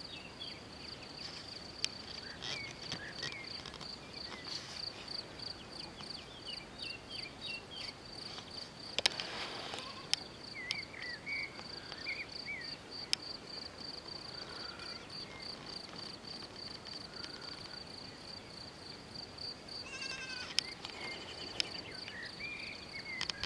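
Meadow insects chirring in a steady high-pitched pulsing note that runs throughout, a few pulses a second, with scattered short chirps and a few sharp clicks over it.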